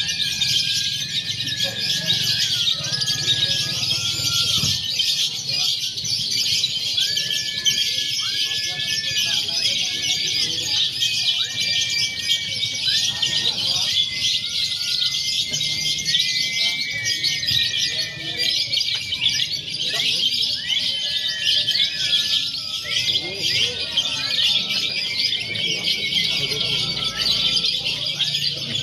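Many lovebirds chattering at once: a dense, continuous high-pitched twittering with short, clearer whistled notes scattered over it.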